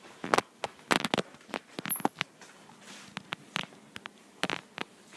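Footsteps on a hard floor: irregular sharp clicks and taps, about two to three a second.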